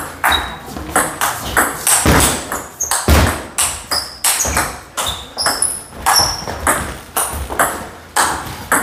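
Table tennis rally: a celluloid ball struck back and forth, quick alternating clicks of paddle hits and table bounces, about two to three a second, each with a short high ping. Two heavier low thuds come about two and three seconds in.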